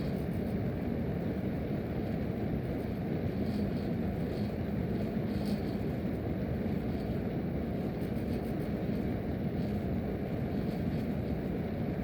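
Steady rush of air from a supply register as an American Standard furnace's blower runs in cooling mode, with a low hum under the airflow.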